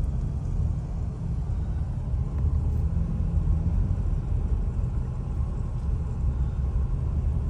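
Steady low rumble of a car driving: engine and road noise heard from inside the cabin.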